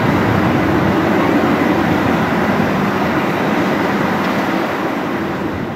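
Jet engine noise from an Airbus A321 on takeoff: a steady, broad rumble that begins to fade near the end as the aircraft moves away.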